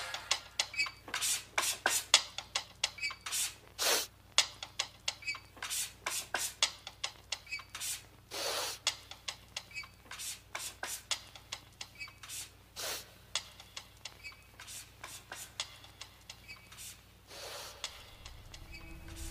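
Vinyl record crackle: irregular pops and clicks, several a second, over a faint low hum, with no music playing. A few longer, softer swishes come about eight and seventeen seconds in.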